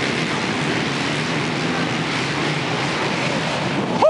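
A pack of racing quads (ATVs) running flat out along the track, their engines merging into one steady, dense drone.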